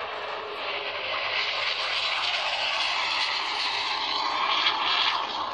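Aerobatic propeller plane's engine heard as a steady rushing drone as it dives, growing louder and loudest near the end.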